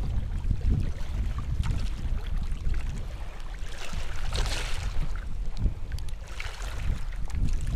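Wind rumbling on the microphone over the wash of shallow sea water, with a louder swish of water about four seconds in and a smaller one near the end.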